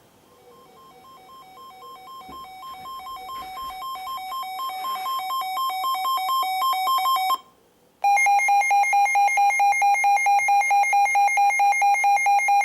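Weather alert radio alarm sounding for an incoming alert. First a pulsing beep alternating between two tones grows steadily louder for about seven seconds. After a short gap a louder single-tone beep repeats about four times a second at steady volume.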